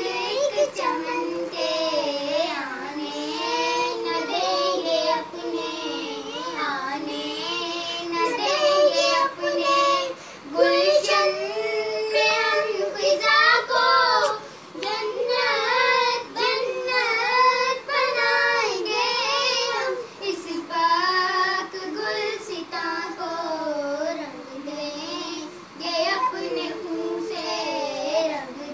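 A child singing a melody, the voice high and continuous with short breaks between phrases.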